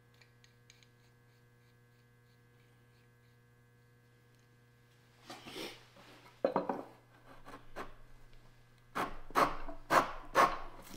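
Hand corner-rounding plane shaving the edge of a soft maple board, with rasping strokes. The first strokes come about five seconds in, and a quicker run of four louder strokes comes near the end.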